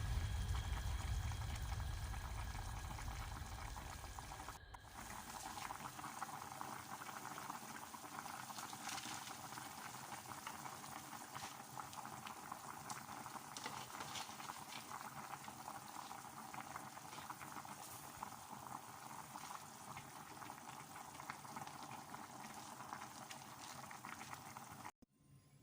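A pot of chicken tinola soup boiling: a faint, steady bubbling with many small pops. It cuts off abruptly near the end.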